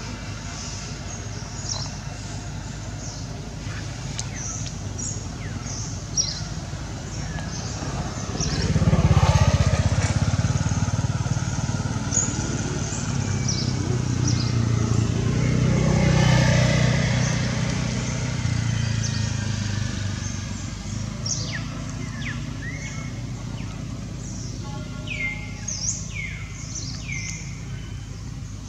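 Two motor vehicles passing one after the other, each growing loud and then fading away. Near the end come a series of short, falling bird chirps.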